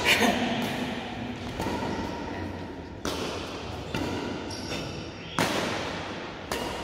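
Badminton rackets striking a shuttlecock back and forth in a rally, a sharp crack roughly every second or so, each one echoing around a large hall.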